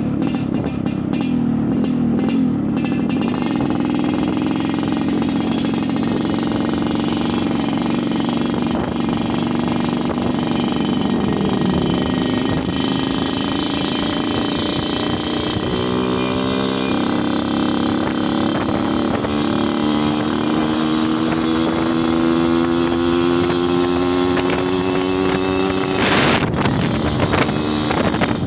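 Yamaha RX-King two-stroke single-cylinder motorcycle engine running with its 'snoring' (ngorok) exhaust note. Its pitch rises slowly through the second half, and there is a short burst of noise a couple of seconds before the end.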